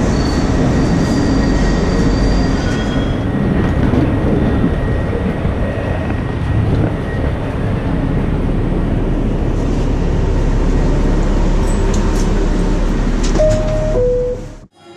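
New York City subway train running on the rails: a steady, loud rumble of wheels and car noise, with a thin high squeal over the first few seconds. Near the end a two-note falling chime sounds, then the sound cuts off abruptly.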